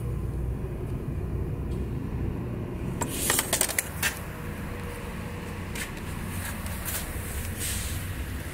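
Steady low vehicle rumble. A quick run of sharp metallic clicks comes about three seconds in, and a few single clicks follow.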